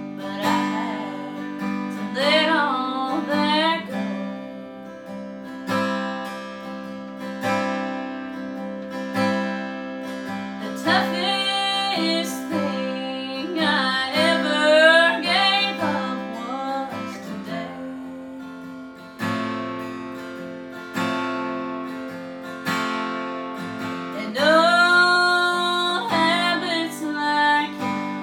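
A woman singing a country song while strumming an acoustic guitar. Her sung lines come and go, with stretches of guitar alone between them.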